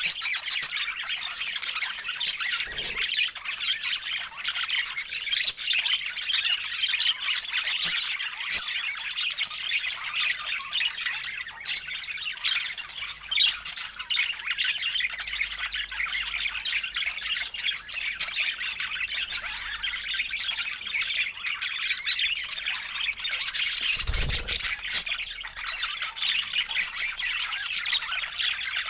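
A flock of budgerigars chattering and squawking continuously, many quick, high calls overlapping without a break.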